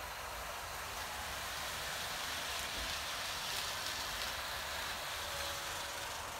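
HO scale model trains rolling on the layout's track: a steady rushing hiss of wheels and motors that grows louder about halfway through, then eases off.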